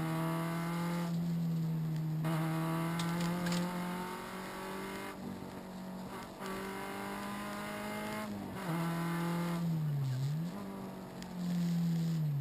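Renault Clio RS rally car's four-cylinder engine heard from inside the cockpit, pulling at high revs with brief lifts of the throttle. About ten seconds in and again at the end the engine note drops and then climbs back as the car slows and accelerates again.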